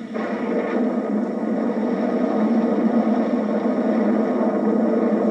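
Steady rumbling noise of an erupting volcano's lava fountain on a documentary soundtrack, played through a television speaker and recorded off the set, so it has little deep bass. It swells over the first second, then holds steady.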